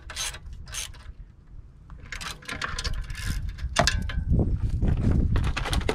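Ratchet wrench clicking as the nuts on the saddlebag bracket bolts are tightened. There are a few strokes at the start, then a quick run of clicks in the middle and a sharp click near 4 s, followed by a low rumble.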